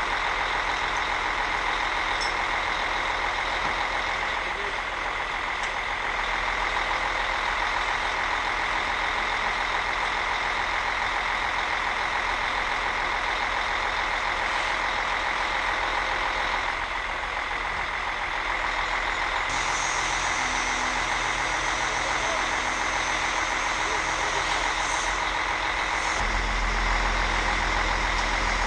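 Truck-mounted crane's diesel engine running steadily, with a steady high whine over it as the crane works. The engine sound gets heavier about two seconds before the end.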